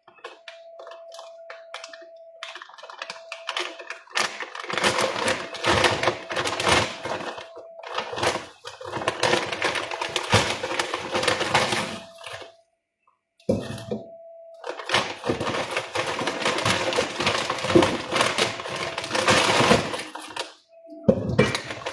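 Kitchen clatter: rapid, irregular knocks and clacks in bursts, with two short pauses, over a faint steady hum.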